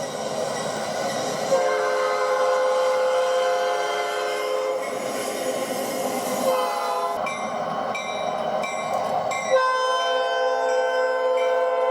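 Locomotive air horn sounding long held chords, the notes of the chord changing several times, over the rumbling noise of the train.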